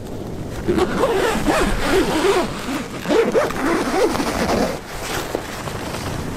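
A zipper being pulled open in a run of quick strokes, starting about a second in and lasting about four seconds, of the kind made unzipping a sleeping bag or tent door.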